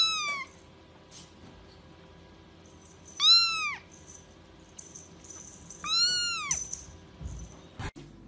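A young kitten meowing three times, high-pitched calls that each rise and then fall in pitch, spaced about three seconds apart.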